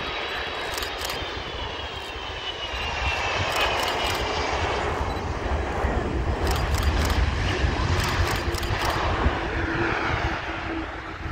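Airbus A330-200 jet landing: a high engine whine falls in pitch over the first few seconds. After touchdown a louder, deeper roar builds and peaks in the middle, as reverse thrust is applied during the rollout, then eases near the end.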